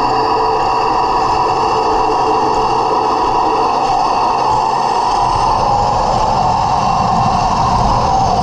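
1/16-scale Heng Long T-90 RC tank driving, heard from a camera mounted on its hull: a steady whine from its small electric drive motors and gearboxes, with the rattle of its running gear.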